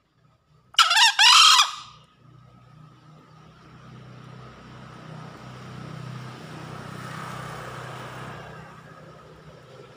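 Male green junglefowl crowing once: a short, loud two-part call about a second in.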